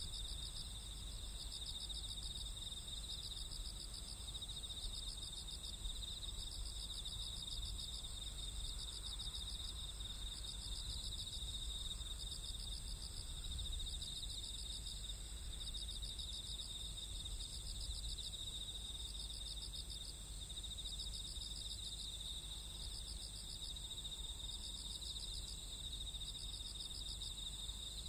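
Night insect chorus of crickets trilling steadily, with repeated pulsing trills over a constant low background rumble.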